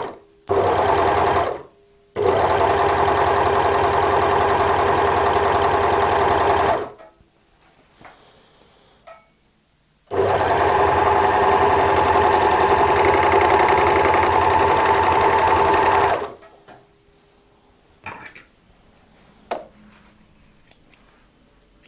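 W6 N454D overlocker stitching a pintuck along folded cotton, running in three stretches: a short burst, then about four and a half seconds, then about six seconds, with brief stops between. A few faint clicks near the end.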